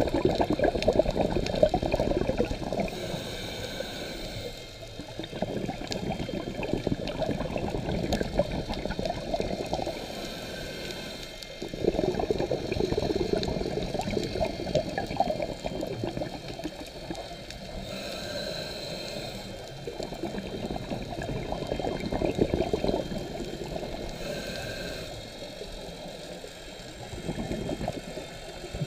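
Scuba regulator breathing underwater: bursts of exhaled bubbles gurgling for a few seconds at a time, each followed by a short hissing inhale, about one breath every seven seconds.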